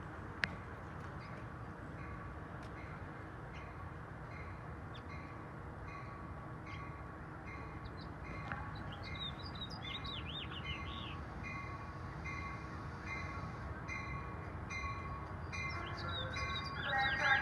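Amtrak passenger train approaching the station, a steady low rumble growing slowly louder. Birds chirp now and then, and a sharp click comes just after the start.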